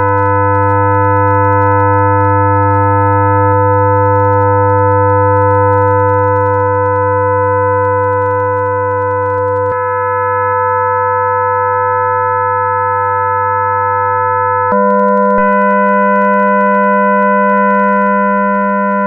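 Experimental drone music: a chord of steady, unwavering tones over a low hum. It thins out about ten seconds in, then switches abruptly to a different, higher set of tones about fifteen seconds in.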